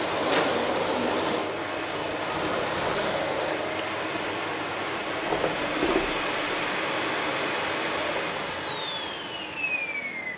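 Vacuum cleaner running with a steady rushing noise and a thin high motor whine. About eight seconds in, the whine starts falling steadily in pitch as the motor spins down.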